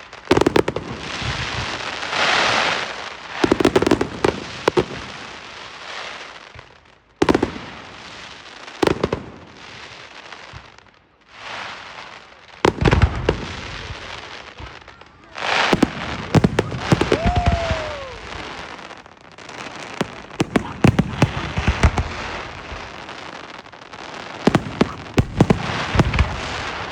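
Fireworks going off one after another: repeated sharp bangs and bursts of crackling. About two-thirds of the way through, a brief whistle rises and then falls.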